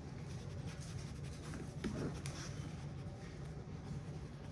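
Faint scratching and light ticks over a steady low hum, with a faint short whine just under two seconds in.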